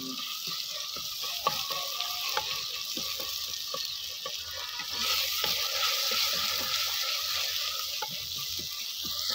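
Onion, tomato and ginger-garlic paste masala sizzling in ghee in a clay pot, stirred with a wooden spoon that gives light clicks and scrapes against the pot. The sizzle grows louder about halfway through.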